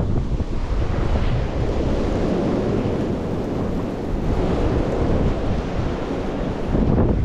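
Blizzard wind blowing across the microphone: a steady rushing, buffeting noise heaviest in the low end.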